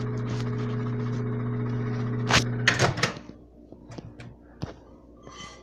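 Microwave oven running with a steady electrical hum, cut off just under three seconds in amid a few sharp clicks as it stops and its door opens. Faint scattered taps and clicks follow as the food is handled.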